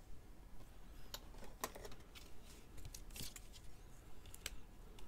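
Faint rustling and a few light ticks and scrapes of a trading card and clear plastic sleeves being handled.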